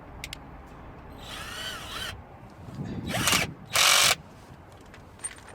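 Power drill-driver fitted with an extension, run in three short bursts to undo a bolt in a car door's window-regulator mechanism. The first burst wavers in pitch, and the last is the loudest.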